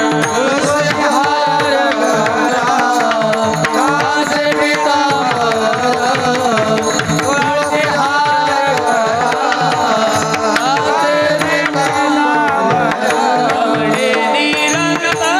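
Marathi devotional kirtan singing: a male voice sings long, ornamented gliding phrases over a steady drone and hand-drum accompaniment.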